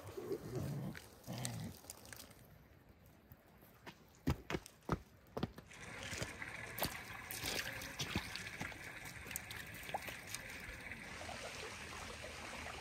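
A few sharp clicks or snaps about four to five seconds in. Then a shallow stream runs steadily over stones, with some splashing as a dog wades through the water.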